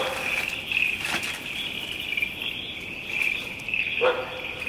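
Night chorus of crickets, a steady pulsing trill, with one short call about four seconds in.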